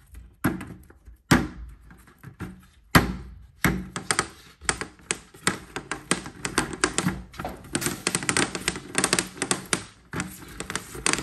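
Suction cup balls worked by hand on a hard surface, their rubbery cups sticking and popping off in quick clicks and smacks. A few separate louder thumps in the first four seconds give way to a fast, nearly continuous run of pops.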